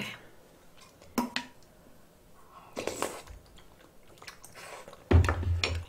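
Eating maesaengi oyster tteokguk (rice cake soup with oysters and seaweed) from a spoon: sips and chewing with small wet mouth clicks. A sudden loud low rumble comes near the end and lasts under a second.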